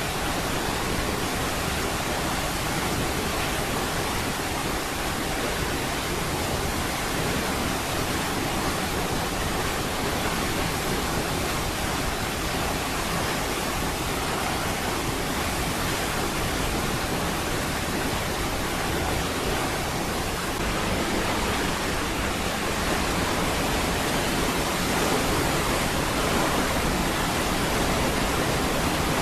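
Niagara Falls' waterfall roaring as a steady, dense rush of falling water, with no breaks or distinct events.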